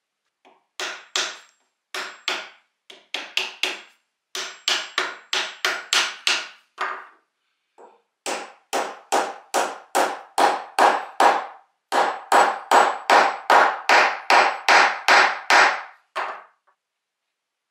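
Hammer blows driving a metal wedge into the eye of a claw hammer's head to lock its new wooden handle in place. About three dozen sharp, ringing taps come two to three a second, in several runs with short pauses, and they grow louder in the second half.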